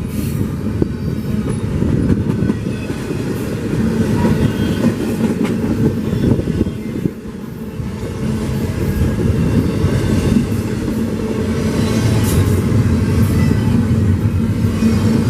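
CPKC train 149's cars rolling past, their wheels rumbling steadily on the rails with some clacking over the joints.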